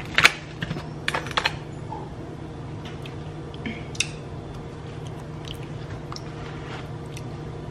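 Aluminium foil crinkling and a metal utensil clicking as ribs are worked apart in a foil-lined pan. There are a few sharp clicks in the first second and a half, then only sparse light ticks over a steady low hum.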